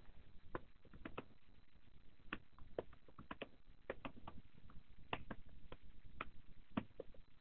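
Computer keyboard keys clicking as code is typed, in faint, unevenly spaced keystrokes.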